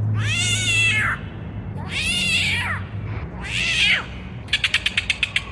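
A cat meowing three times, each meow a drawn-out call that rises and then falls in pitch. Near the end comes a quick run of sharp ticks, about ten a second.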